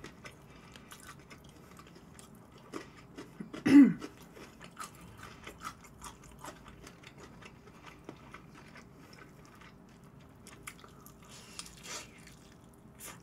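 Close-miked chewing and biting of sauced bhc Boombastic fried chicken, with many small wet clicks and crunches. About four seconds in there is one short, loud hum from the eater's voice, falling in pitch.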